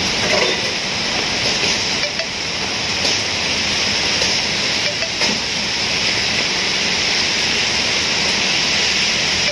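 Heavy rain pouring steadily, a dense, even hiss of drops on the road, roofs and trees, with a car passing on the wet street.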